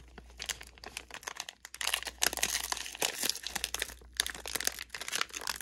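Plastic wrapper of a 2023 Panini Prizm football 15-card value pack crinkling and crackling as gloved hands handle it and work it open. The crackling grows denser and louder about two seconds in.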